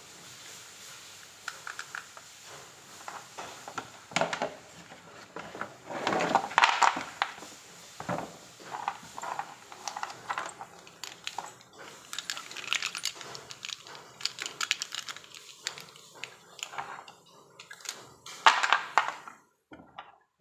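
Hands handling a small plastic toy car and its packaging: irregular rustling with scattered plastic clicks and knocks, loudest in two bursts a few seconds in and near the end.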